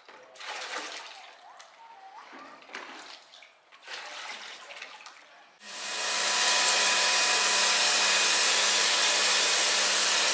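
Faint, irregular sounds of water work, then about five and a half seconds in an electric machine starts suddenly and runs steadily: a loud even hiss of water over a constant motor hum, as used in cleaning the pool.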